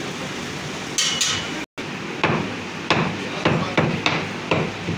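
Heavy meat cleaver chopping goat meat and bone on a wooden chopping block: a run of about seven chops in the second half, two to three a second, after two sharp clicks about a second in.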